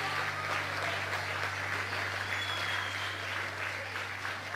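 A crowd of children clapping, a dense steady patter, over a steady low hum.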